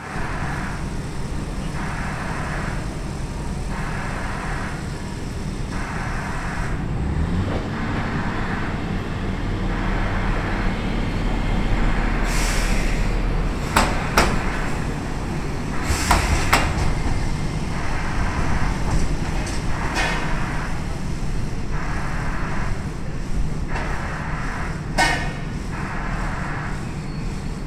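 Iyotetsu streetcar passing close on the street track, with a deep rumble as it nears. There is a brief high wheel squeal, then sharp clacks as its wheels cross the rail joints and points. Under it runs a steady rumble with a regular pulsing about every 0.7 s.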